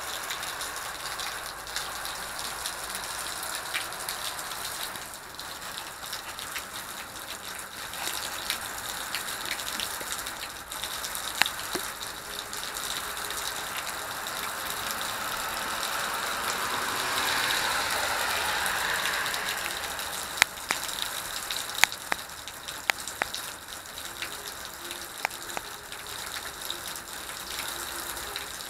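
Heavy rain falling steadily, a dense hiss that swells louder for a few seconds past the middle. Scattered sharp taps of single drops landing close by, most of them in a cluster near the end.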